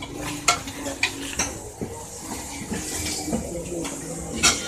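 Thin plastic bags of produce rustling and crackling as they are handled, with a few sharp crackles spread through, over a low murmur of market background.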